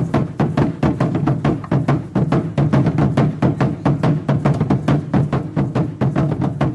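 Background music: a fast, even percussive beat over a steady low bass tone.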